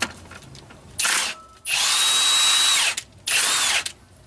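Cordless impact gun backing out an engine front-cover bolt: three runs of the motor, a short one about a second in, a longer one of over a second, then another short one.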